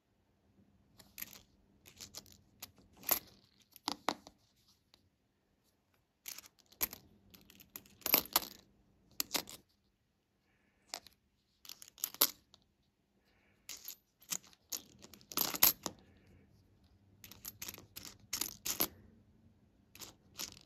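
Jefferson nickels clicking and clinking against one another as a finger slides them apart one by one, in irregular clusters of small metallic clicks with short pauses between.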